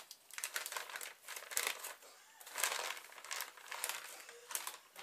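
Crinkly packaging rustling and crumpling in irregular bursts as it is handled and opened.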